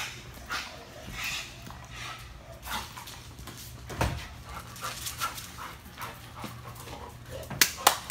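Large dog panting in short, irregular breaths, with a few sharp clicks near the end.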